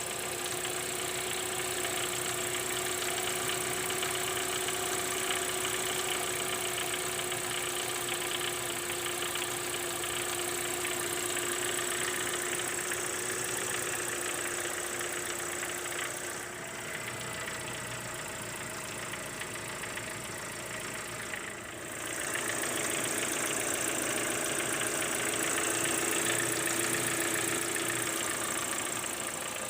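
Mitsubishi 4G93 GDI inline-four engine idling with a steady rattling clatter. The owner traces the clatter to a worn mesh between the crankshaft and the oil pump drive gear, a wear that is common at 250,000+ km and that he considers harmless. The sound dips a little for a few seconds in the middle.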